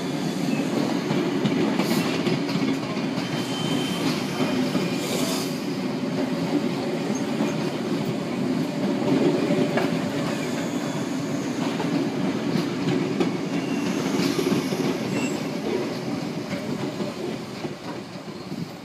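Electric suburban train running past on the rails: a steady rumble of wheels on track with occasional clacks. The sound fades near the end as the train moves off.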